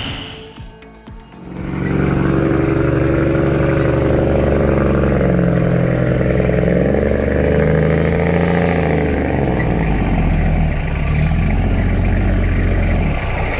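Heavy truck diesel engine running hard under load, its pitch slowly rising and falling. It comes in loud about a second and a half in, after a short quieter moment.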